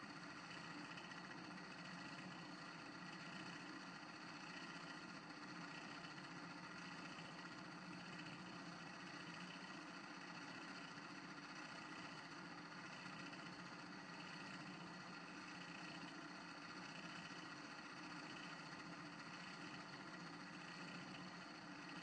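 Wood lathe running steadily at a faint, even level, with a paper towel held against the spinning wooden workpiece.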